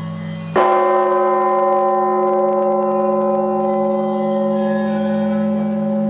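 Large church bells ringing: one bell is struck about half a second in, and its many tones ring on and slowly fade over a steady low hum.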